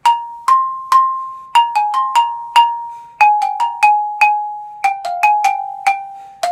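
Xylophone played with mallets: a single melody of sharply struck notes, some in quick pairs, each ringing briefly, stepping gradually downward in pitch.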